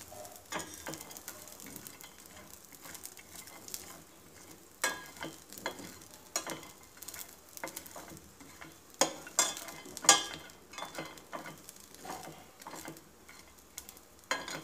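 A metal spatula scraping and stirring chopped walnuts around a stainless steel pan, in irregular scrapes and clicks, the loudest about five and ten seconds in. The nuts are sautéing in a little butter with a light sizzle underneath.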